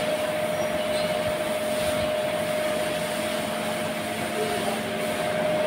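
Steady machine hum: one constant tone over an even hiss, unchanging throughout.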